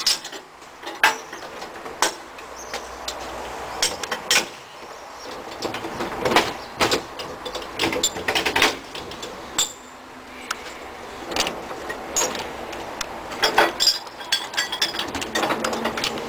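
Irregular metallic clanks and knocks from the coupling gear between two carriages of a moving Sóller railway train, over the running noise of wheels on the track.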